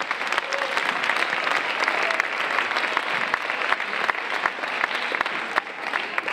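Audience applauding, a dense patter of many hands clapping at once that begins to die away near the end.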